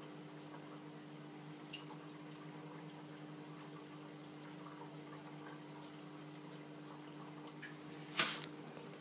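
Reef aquarium running: a steady low hum with water moving and trickling. A faint tick about two seconds in, and a brief louder noise just after eight seconds.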